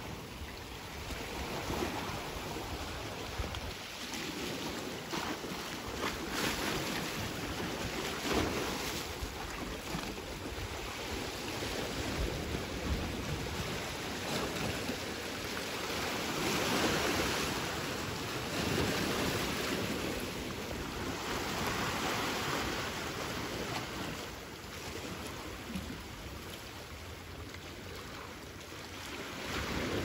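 Sea waves washing and surging, rising and falling every few seconds and fullest around the middle, with wind rumbling on the microphone.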